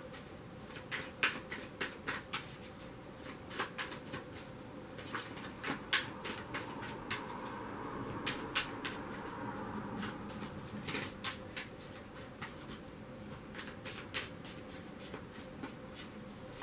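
A deck of cards shuffled by hand: a string of irregular light card snaps and taps, with a soft rustle of cards sliding against each other around the middle.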